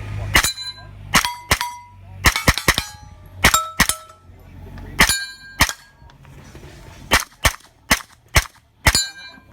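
A 9mm pistol-caliber carbine firing about fifteen shots at steel targets in quick strings of two or three, with pauses between them, as the shooter moves through the stage. Many shots are followed by the brief ringing of a steel plate being hit.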